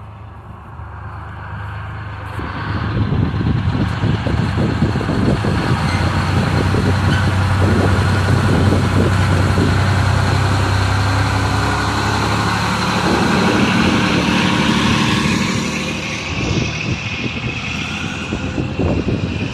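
Big-rig truck's diesel engine running close by with a heavy low rumble, growing louder about two seconds in and easing off a little near the end.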